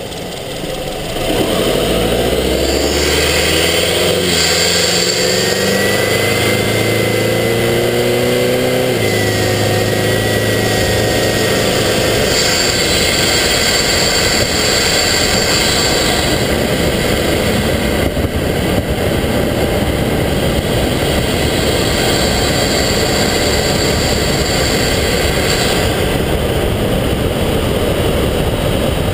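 Subaru Forester XT's turbocharged flat-four heard from inside the engine bay, pulling hard from about a second in with the revs climbing, and a faint high whistle over it for several seconds. After about ten seconds the engine note gives way to a steady rushing noise of air and road.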